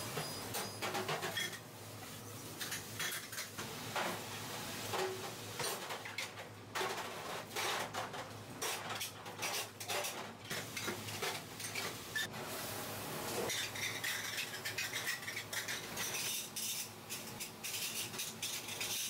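Irregular light clinks and clatter of metal kitchenware: ingredients being taken from stainless steel prep containers and laid into a stainless steel stew pot.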